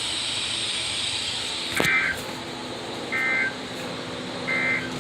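NOAA Weather Radio sending the three short EAS/SAME digital data bursts of the end-of-message code over steady radio static, about 1.4 s apart, which mark the end of the broadcast watch message. A sharp click comes just before the first burst.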